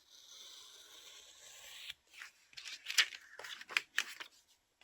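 Scissors cutting through magazine paper: a smooth continuous cut for about two seconds, then a run of short, sharp snips.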